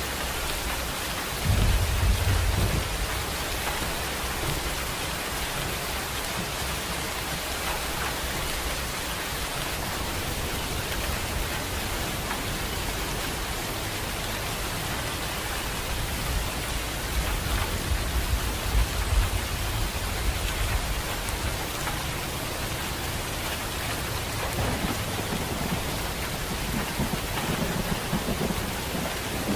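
Steady rain, with low thunder rumbling in two main swells: about two seconds in and again from about 16 to 20 seconds, with a fainter rumble near the end.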